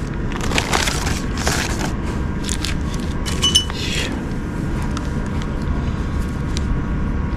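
Small car parts in plastic bags rustling and a long control cable scraping over carpet as they are handled, with a light metallic clink about three and a half seconds in. A steady low rumble runs underneath.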